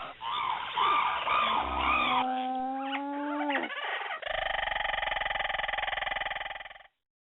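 Domestic chickens clucking in short repeated calls, then a rooster crowing, followed by a long steady buzzy call that cuts off abruptly near the end.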